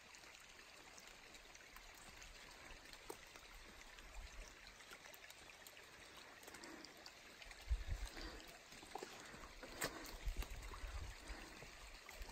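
Faint, steady rush of running water, like a small stream or trail runoff. A few sharp clicks and some low thumps are scattered over it.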